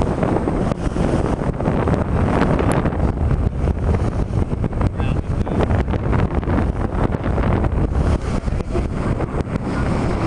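Wind buffeting the microphone over the rush of water along the hull of a heeled sailboat under sail. It is a steady, loud, fluttering rumble throughout, with no engine.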